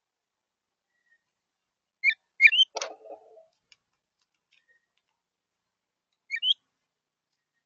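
Northern cardinal giving short rising whistled notes, in pairs: two about two seconds in and two more near the end. A brief click comes between them.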